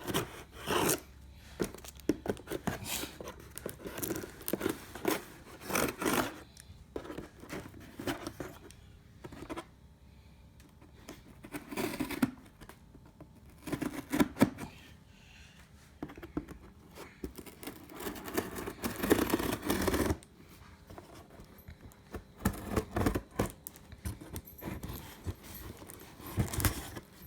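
A box cutter slitting packing tape and a cardboard shipping box being worked open: a run of irregular cutting and scraping strokes, with a longer continuous stretch about two-thirds of the way through.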